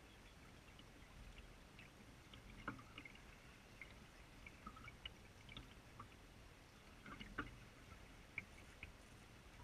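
Faint lapping and gurgling of creek water flowing past, with small scattered plinks and drips; two slightly louder splashes about three seconds in and about seven seconds in.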